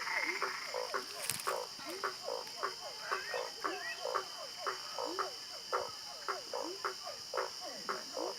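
A chorus of frogs calling: many short, quick calls, several a second and overlapping, many sliding in pitch, over a steady high-pitched hum.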